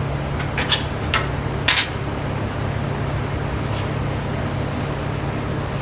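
Metal clinks and knocks as a 4L60E transmission case and its parts are handled and turned over on the bench: four sharp ones in the first two seconds, then none. Under them a steady, really loud background hum.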